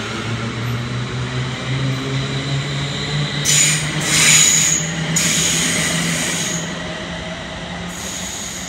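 London Northwestern Railway Class 350 Desiro electric train pulling away from the platform, its traction motor whine climbing steadily in pitch as it gathers speed. From about the middle come several bursts of high-pitched squealing and hissing from the wheels.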